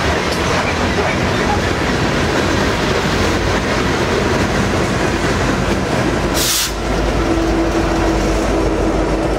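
Loaded coal hopper cars and the rear distributed-power diesel locomotive of a freight train rolling past, steel wheels running and clattering on the rail. There is a brief high hiss about two-thirds of the way through, and then a steady low hum from the departing locomotive.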